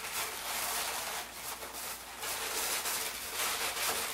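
Inflated latex 260 twisting balloons rubbing against each other and against hands as they are twisted and handled, an irregular rustling rub that swells and dips.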